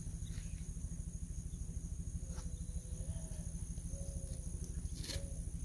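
Off-road kart's engine idling with a low, even pulse, under a steady high insect trill. A few faint short whines come in the second half.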